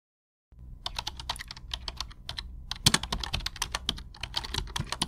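Keyboard typing, a quick irregular run of key clicks that starts about half a second in, laid over text being typed out letter by letter.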